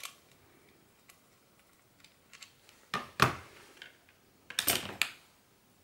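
Small clicks and light knocks as a wire dipole antenna is unscrewed from a handheld vector network analyser's connector and handled over a cutting mat, with two sharper clicks about three seconds in and a brief scraping rustle near the end.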